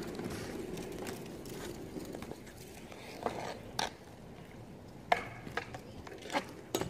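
Inline skate wheels rolling on asphalt, then a handful of sharp clacks of a street hockey stick striking the ball and the pavement.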